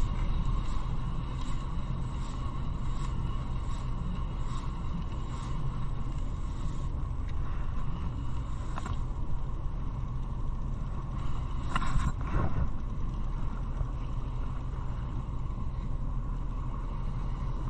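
Electric fishing reel being worked by hand, its handle and gearing giving faint, evenly spaced clicks, over the steady low rumble of the fishing boat's engine. A couple of louder short rattles come about two-thirds of the way through.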